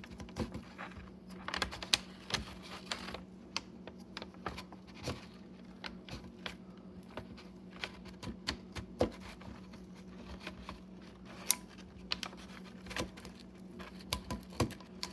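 Irregular small clicks and taps of a metal pick working around the oil filter housing to pry off the old O-ring, over a steady low hum.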